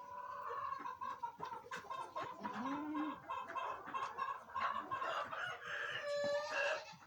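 A flock of chickens clucking and calling, many short repeated calls overlapping, with a louder drawn-out call about six seconds in.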